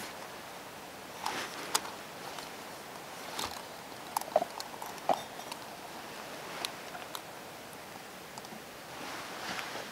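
Scattered small metallic clicks and taps from a SOTO Amicus camping stove being handled on its gas canister: the canister is turned on the stove's threads and the folding pot-support arms are swung out.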